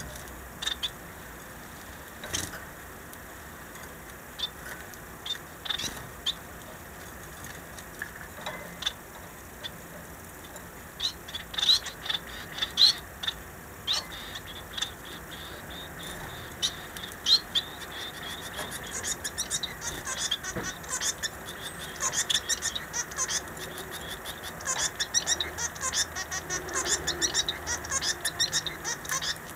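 Small caged finches chirping: short, high calls, scattered at first, then coming in quick, dense runs in the last third.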